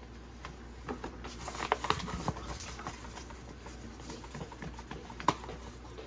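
Light kitchen handling sounds as flour is measured out for a breading: scattered soft taps and rustles, with one sharper click about five seconds in.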